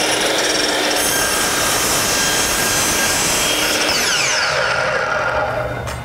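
Milwaukee compound miter saw running at full speed as its blade cuts through painted chair rail molding at 45 degrees. About four seconds in the trigger is released and the motor winds down with a falling whine.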